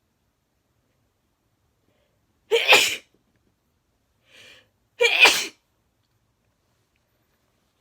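A person sneezing twice, about two and a half seconds apart, each a loud, sharp burst lasting about half a second, with a short faint sound between them. The sneezes are provoked by tickling the inside of the nose with a twisted paper string (koyori).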